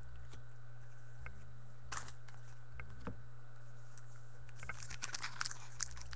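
Trading cards being handled and shuffled by hand: faint scattered clicks and rustles of card stock, growing busier near the end, over a steady low hum.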